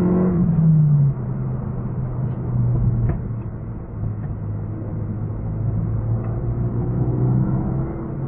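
Renault Mégane RS265's turbocharged 2.0-litre four-cylinder engine, heard from inside the cabin through the dashcam. It is loud under power at first, drops and quietens about a second in, then runs steadily at part throttle with a slight rise near the end, with a few faint ticks.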